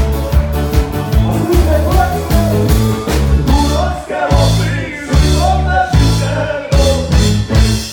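Live folk band music: fiddles, double bass and cimbalom over a strong drum beat, with a man singing to his heligónka (diatonic button accordion) from about two seconds in.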